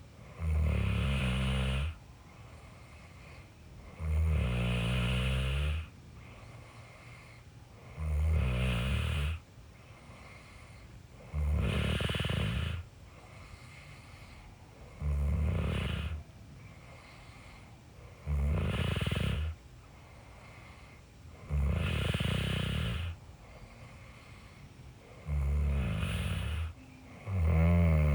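A person snoring in a slow, regular rhythm: nine snores in all, one every three to four seconds. Each snore lasts about a second and a half and has a rattling, fluttering low tone. Between the snores a faint, steady background sound continues.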